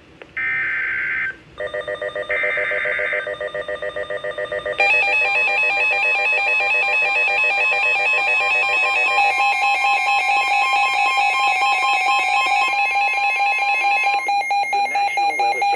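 Emergency Alert System activation on NOAA Weather Radio. The last two bursts of the SAME digital header sound as harsh buzzing blocks about a second long. Then comes a rapidly pulsing electronic alert tone. It gets louder about five seconds in and changes its pitch pattern twice, with a steady high tone under it for much of the time.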